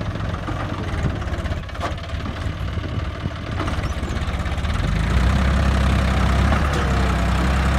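John Deere 5310 tractor's three-cylinder diesel engine running as the tractor drives through a trench, a steady throb that grows louder and heavier about five seconds in.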